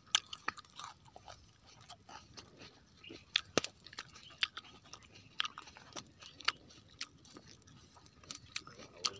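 Close-up chewing of crunchy fresh coconut pieces: irregular crunches and clicks of biting and chewing.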